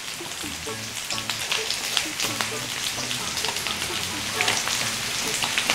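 Beef large intestine (daechang) and pork belly sizzling on an electric griddle plate, a steady crackling hiss of frying fat.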